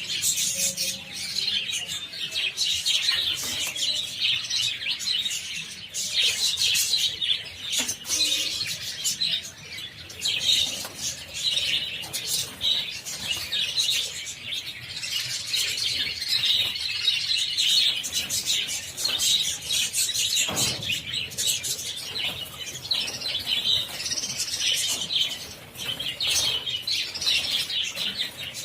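A flock of budgerigars chirping and chattering continuously, with wings flapping.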